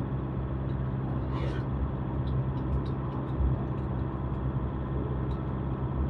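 Steady low engine and road rumble of a moving vehicle, with scattered light clicks and a brief hiss about a second and a half in.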